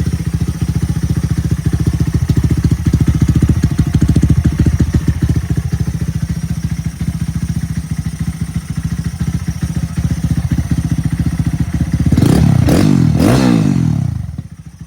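Motorcycle engine idling through an Over Racing TT exhaust with its baffle removed, then blipped twice near the end, revving up and falling back before settling to idle.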